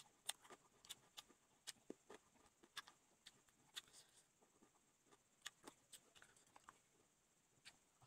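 Faint, irregular wet mouth clicks and smacks of someone chewing noodles close to the microphone, with light clicks of chopsticks stirring in a metal bowl.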